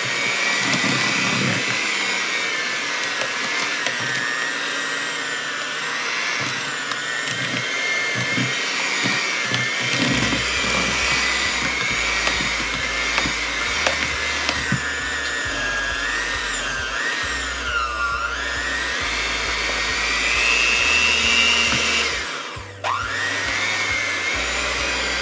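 Hamilton Beach electric hand mixer running, its beaters working flour into stiff, crumbly peanut butter cookie dough. A steady motor whine that wavers in pitch, dipping about 18 seconds in and dropping sharply about 23 seconds in before picking back up.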